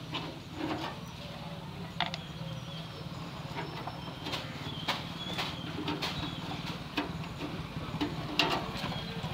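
Scattered light clicks and taps of a screwdriver being handled around a gas water heater's sheet-metal casing, over a steady low hum.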